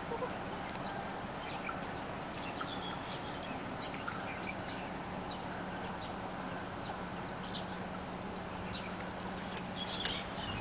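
Outdoor rural ambience: a steady background hiss with small birds chirping faintly and sporadically, and a low steady hum that stops near the end.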